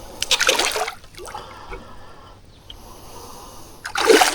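Water splashing in short bursts, near the start and again near the end.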